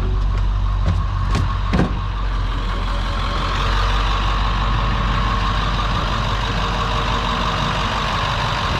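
International 3800 school bus's T444E turbo-diesel V8 idling steadily. A few short knocks in the first two seconds, from footsteps on the bus's door steps.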